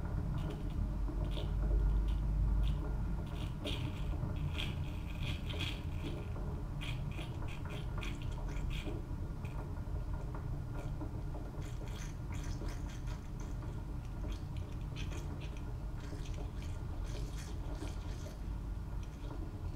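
Vintage East German Kaffee Boy K500 drip coffee maker heating its water: a steady low rumble with scattered small ticks and crackles, the build-up toward the boil before coffee starts to drip.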